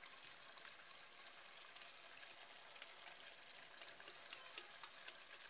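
Faint sizzling of mutton cooking in the juices it has released in the pot, with scattered small crackles.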